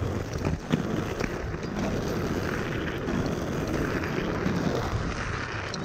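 Inline skate wheels rolling steadily over pavement, a continuous gritty rumble broken by a few small clicks.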